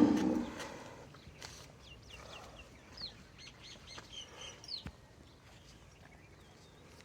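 The tail of a cow's loud moo fades out within the first second. Then come small birds' short high chirps, off and on, and a sharp tick just before the five-second mark.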